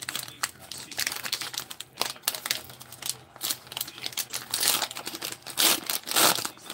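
A 2023 Donruss football card pack's wrapper being handled, torn open at the top and pulled apart by hand, with crinkling and tearing. The crackling is loudest near the end as the wrapper is spread open.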